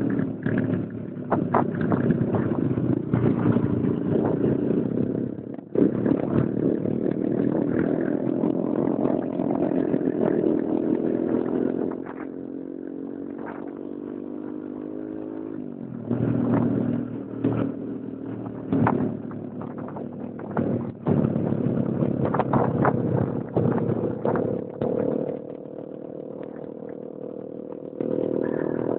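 Small motorcycle engine running on the move, heard from the bike itself, with frequent short knocks and rattles. About halfway through it eases off and its pitch falls slowly, then it picks up again.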